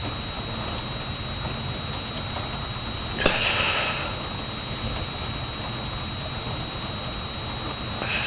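Steady rain patter during a thunderstorm, with a sharp click about three seconds in, followed by a short hiss, and another brief burst near the end.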